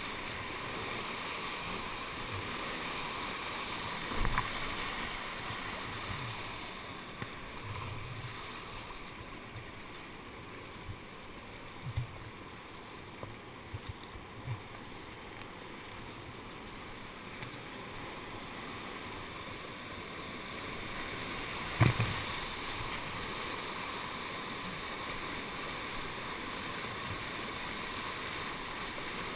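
Whitewater rushing and churning close around a kayak surfing in a river hole. Several sudden knocks and splashes break through it, the loudest about four seconds in and again about twenty-two seconds in.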